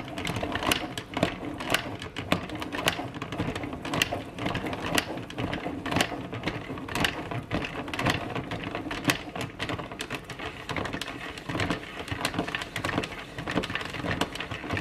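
Hand-cranked rotary drum grater shredding frozen butter: a fast, irregular clicking and rattling as the drum is turned.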